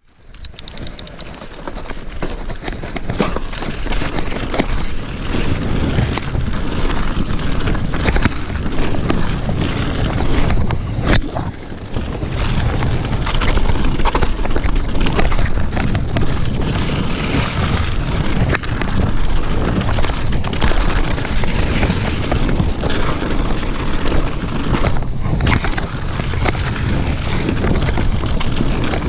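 Wind buffeting a GoPro Hero 5 Black's microphone while a downhill mountain bike rattles and knocks over a rough, rocky trail. The noise builds up over the first couple of seconds as the bike gets going.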